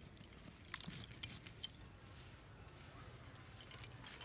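Fingers plucking small pinfeathers from a scalded goose's wet skin: faint small pulls and ticks, with a few sharper clicks between one and two seconds in.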